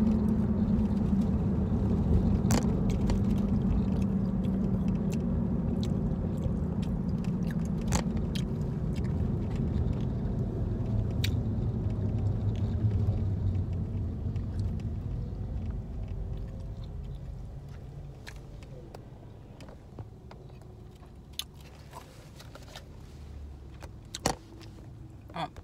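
Low rumble inside a car, with a steady hum, fading away after about two-thirds of the way through. Scattered small clicks and chewing from someone eating fries out of a paper tray run over it.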